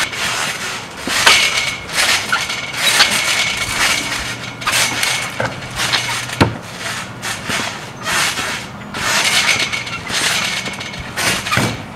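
Trampoline springs and mat creaking and jangling under two people bouncing, a noisy burst about once a second that follows the jumps.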